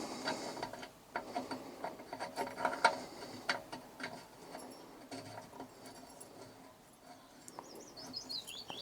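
Light clicks and taps of brass compressor pipe fittings being handled. Near the end, a bird gives a short run of chirps falling in pitch.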